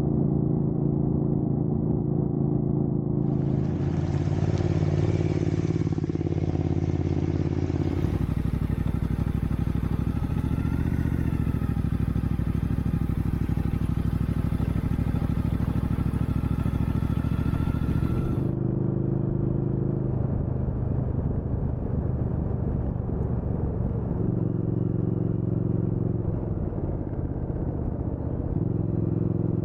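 Motorcycle engine running steadily while being ridden, its pitch rising and falling briefly about eleven seconds in. A rushing noise joins it for about ten seconds in the middle, and the sound's tone changes abruptly a few times.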